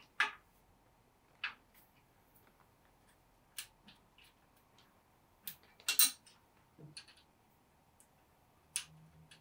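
Scattered metallic clicks and clinks of a hex key and wrench working the fasteners of the cast iron spring block under a Hammer C3 31 jointer's infeed table. There are about seven sharp clicks, the loudest a quick double clink about six seconds in.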